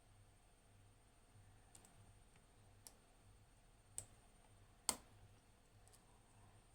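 A few faint, sharp clicks of a lock pick working the pins inside a 5-pin ABUS padlock cylinder, spaced about a second apart, the loudest about five seconds in.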